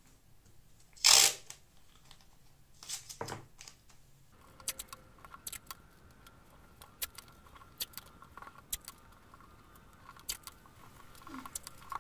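Paper masking tape being pulled and torn off the roll: one loud short rip about a second in and a smaller one around three seconds, then light crackling and scattered ticks as tape strips are pressed down over a paper pattern.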